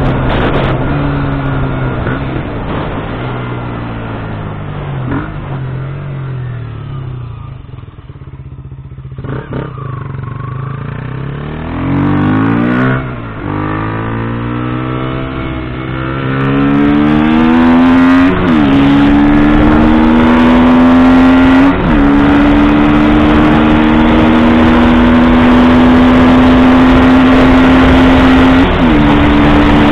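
KTM Duke 125's single-cylinder four-stroke engine, heard from on the bike while riding. It eases off and slows, gives a short rev near the middle, then accelerates with a climbing pitch through three upshifts, each a sudden brief dip in pitch before the note climbs again.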